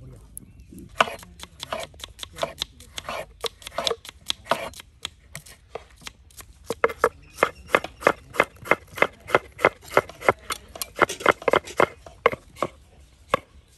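A kitchen knife slices tomatoes and eggplant on a wooden cutting board, the blade tapping the board with each cut. The taps are irregular at first, then come in a quicker, steadier run of about four a second from about halfway.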